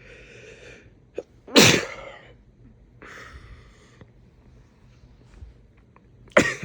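A man sneezing twice during a sneezing fit, the sneezes about five seconds apart. Each sneeze is preceded by a breathy intake of air.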